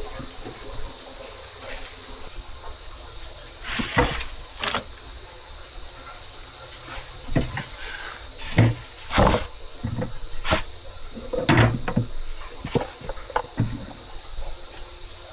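Household objects being handled: a dozen or so separate knocks and clatters with short swishes between them, over a faint steady high whine.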